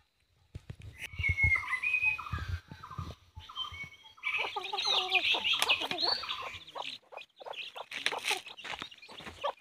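Birds chirping. A string of short calls gives way, about four seconds in, to a dense spell of overlapping chirps, which thins out near the end. A few low thumps sound in the first couple of seconds.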